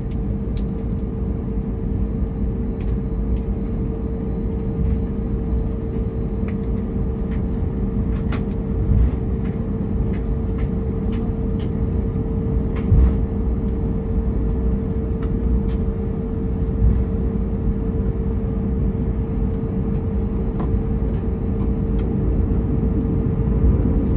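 Airbus A321neo's CFM LEAP-1A engines at taxi power and the airliner rolling along the taxiway, heard inside the cabin as a steady low rumble with a constant hum. There are a couple of light bumps about nine and thirteen seconds in.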